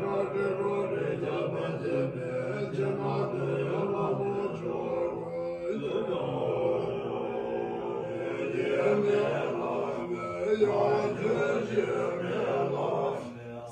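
Tibetan Buddhist monks chanting prayers together in low, sustained voices, with a brief break about six seconds in.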